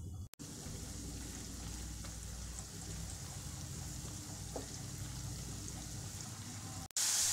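Cornflour-coated potato strips frying in hot oil in a wok, a steady sizzle as a spatula turns them. Near the end the sizzle suddenly gets louder.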